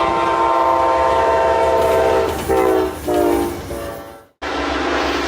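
Norfolk Southern freight locomotive's multi-chime air horn sounding a loud, held chord, then played in shorter, wavering blasts as the horn valve is worked. A low rumble runs underneath, and after a sudden break about four and a half seconds in, steadier train noise follows.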